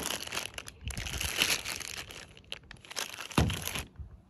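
Clear plastic bags of wiring parts crinkling and rustling as they are handled, in irregular bursts, with a louder crackle about three and a half seconds in as they are put down on the car's hood.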